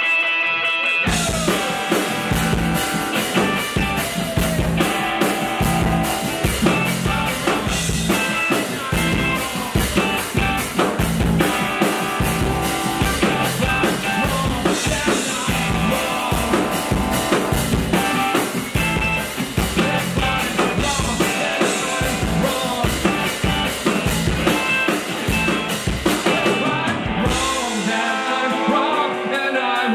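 Rock band playing live: electric guitar, bass and drum kit with a male singer. The full band with drums comes in about a second in, and the drums drop out near the end, leaving guitar and voice.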